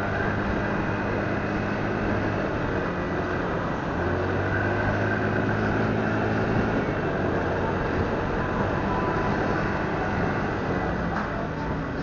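Motorcycle engine running steadily while riding, under a constant rush of wind and road noise. Its low hum eases a couple of seconds in and picks up again about four seconds in.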